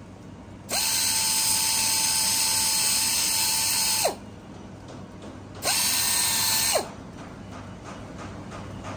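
Narrow belt sander (belt file) grinding the flash off a raw cast-aluminium throttle body during fettling, in two runs: a long pass of about three seconds and a shorter one about a second long. Each run has a steady whine over a grinding hiss, and the whine drops in pitch as the tool winds down.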